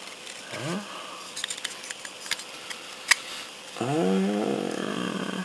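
Hard plastic model-kit parts clicking and knocking in the hands as a ball cockpit is fitted into a hull, with one sharp click about three seconds in. A man makes a short rising 'hm' about half a second in and a louder, drawn-out 'hmm' near the end.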